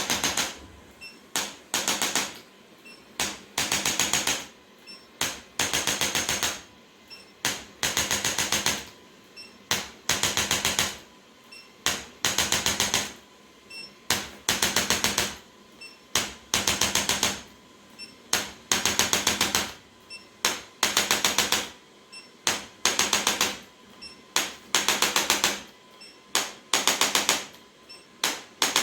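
Handheld electric percussion device tapping in rapid bursts: each burst is a fast rattle of clicks lasting about half a second to a second, repeated roughly once a second with short pauses between.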